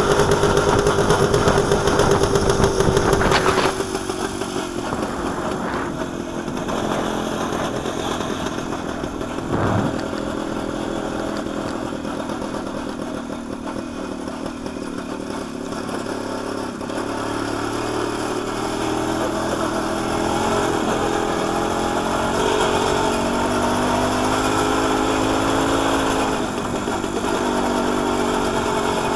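WSK 125 Lelek's single-cylinder two-stroke engine running while the motorcycle is ridden, louder for the first few seconds, with a single knock near ten seconds in and the engine pitch climbing in the second half as it speeds up.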